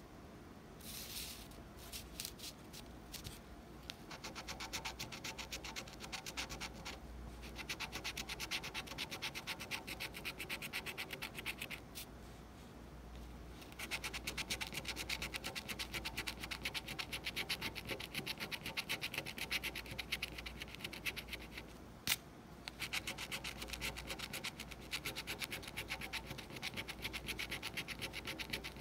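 A coin scratching the coating off a paper lottery scratch-off ticket in quick back-and-forth strokes, pausing briefly about halfway and getting louder after. Two sharp clicks cut through the scratching.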